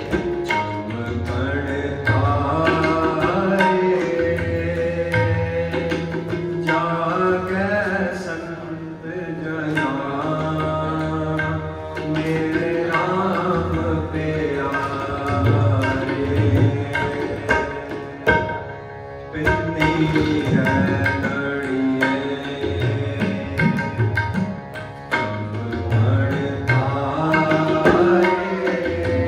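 Sikh kirtan: tabla playing a steady beat under a singing voice and sustained held accompanying notes, the singing pausing briefly now and then.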